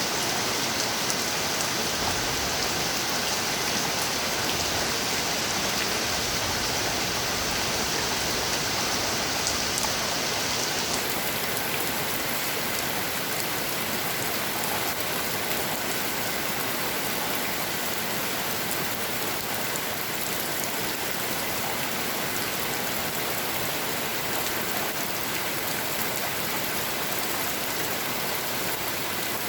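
Steady rain falling, an even, dense hiss with no let-up; the high part of the hiss changes about eleven seconds in.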